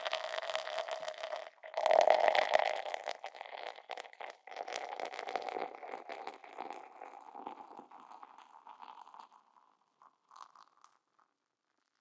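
Beer being poured into a glass: the stream breaks off briefly, comes back louder about two seconds in, then tails off into the crackling fizz of the foam, which fades away.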